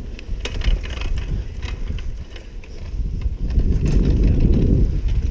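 Mountain bike rolling fast down a dirt trail: a low rumble of wind and tyres, with sharp clicks and rattles from the bike over bumps in the first couple of seconds. The rumble grows louder about three and a half seconds in.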